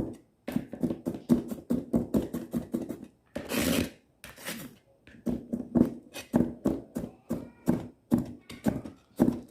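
Butcher's knife chopping garlic on a cutting board: a quick run of knocks, about four or five a second, broken by a brief scrape about three and a half seconds in.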